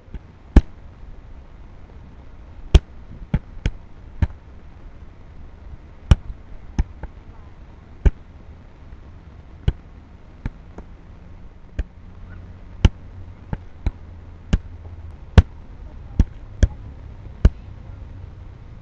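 Gloved strikes smacking on handheld kickboxing pads: about twenty sharp slaps at an uneven pace, some in quick pairs.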